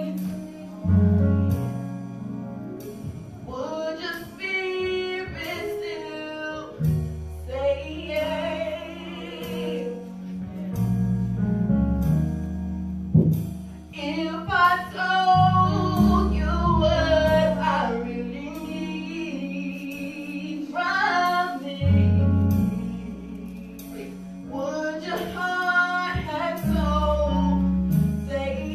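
Gospel worship song: a woman sings lead into a microphone over accompaniment with sustained bass notes and a steady beat.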